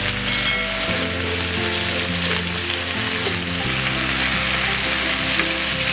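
Marinated chicken pieces sizzling steadily in hot oil in a frying pan, cooking through on a low flame.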